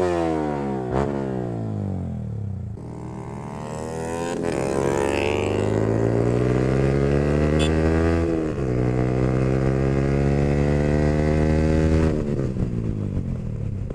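Yamaha R15M's single-cylinder engine through an aftermarket full exhaust, heard from on board while riding: the engine note falls as the throttle is eased, then climbs under acceleration, drops briefly at a gear change about eight and a half seconds in, climbs again, and falls away near the end as the throttle closes.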